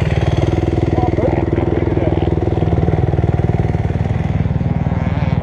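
Dirt bike engine running steadily at low revs, with even, rapid firing pulses and no revving.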